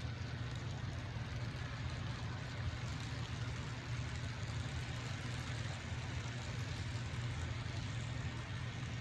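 Diesel locomotive engine running steadily: a low, even hum with a hiss over it.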